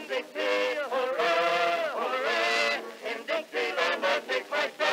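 Background music: a song with a singing voice holding long notes through the middle.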